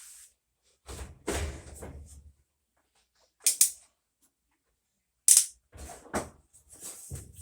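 Sharp knocks and clicks of washer parts and tools being handled during a suspension repair: a rattling scrape with dull thuds about a second in, then separate sharp clicks, the loudest about five seconds in, and a few more knocks near the end.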